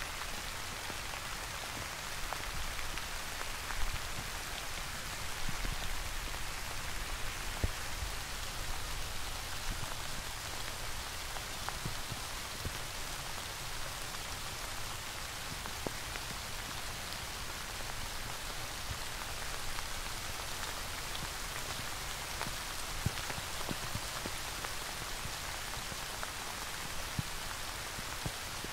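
Steady rain falling: an even hiss with individual drops ticking out a little louder here and there.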